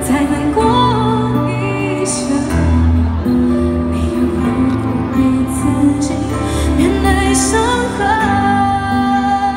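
Female singer singing a slow Mandarin pop ballad live over instrumental accompaniment through a concert PA system, holding a long note near the end.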